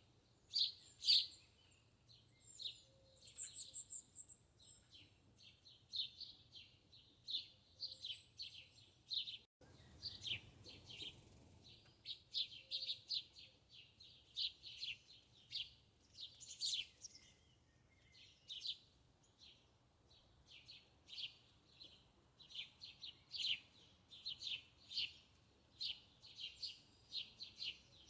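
Small birds chirping: many short, high chirps in quick succession, with brief pauses.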